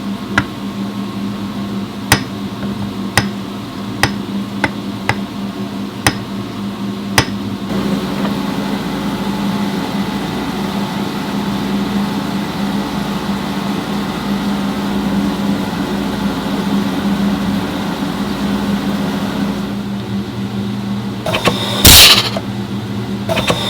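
Workshop sounds during reassembly of a CVT transmission: a steady machine hum under a run of about eight sharp metallic taps and clicks in the first seven seconds, then two loud noisy bursts near the end.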